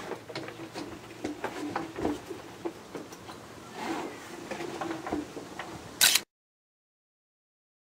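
Room sound with scattered light knocks and faint indistinct voices. About six seconds in there is a sharp loud click, then dead silence.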